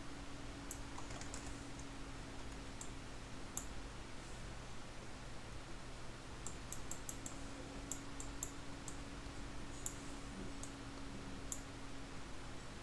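Computer keyboard and mouse clicks, scattered light taps with a quick run of them about halfway through, over a faint steady hum.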